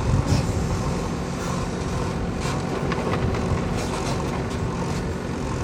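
Bull backhoe loader's diesel engine running steadily under work, a continuous low rumble with a few brief sharper noises over it.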